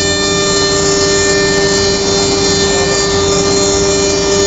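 Philicam F4 1325 CNC router running, giving a steady machine hum and whine made of several constant tones.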